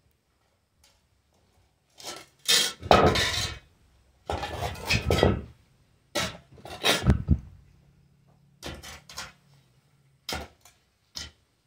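A metal shovel scraping and scooping through dirt and straw on a barn floor: a run of long rasping scrapes with clinks of the blade, then shorter scoops and a few sharp knocks.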